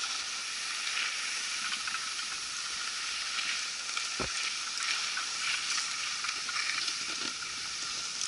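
Steady hissing scrape of snow-sports gear sliding over the snow while being towed up a drag lift, with a single low thump about four seconds in.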